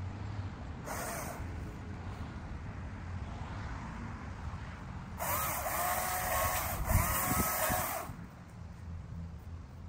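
Small cordless electric saw revving in bursts: a short whine about a second in, then a longer run of about three seconds starting about five seconds in, with a knock near seven seconds.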